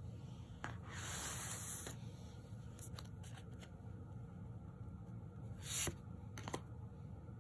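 Tarot cards being handled: soft rubbing and sliding of card stock with a few light clicks, and a short, louder swish just before six seconds as the top card is slid off the deck.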